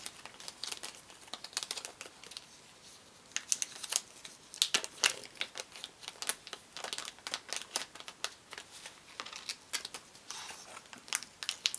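Plastic packaging crinkling as it is handled, with irregular sharp crackles and small clicks, sparser a couple of seconds in.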